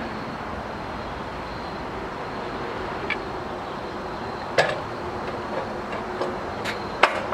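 A cant hook knocking against the log and the sawmill's steel track: a few sharp knocks, the loudest about four and a half and seven seconds in, over a steady background hiss.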